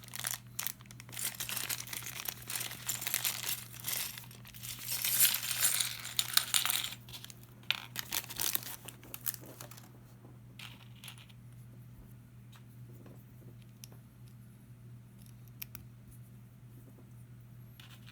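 Plastic packaging crinkling as it is handled, with small Lego pieces clicking and clattering against each other. After about ten seconds the crinkling stops and only occasional light clicks of pieces remain.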